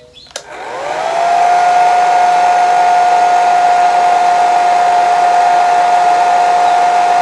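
Handheld hair dryer switched on with a click, its motor whine rising over about a second to a steady pitch over rushing air, then running steadily.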